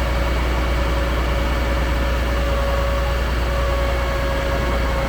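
Concrete pump truck's diesel engine running steadily with a heavy low rumble. A steady whine over it stops near the end.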